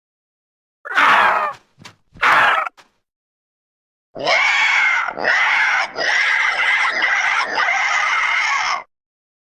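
Sound-effect calls made for the extinct terror bird Titanis walleri: two short harsh screams about a second apart, then after a pause a long harsh screeching call broken by several brief gaps, lasting almost five seconds.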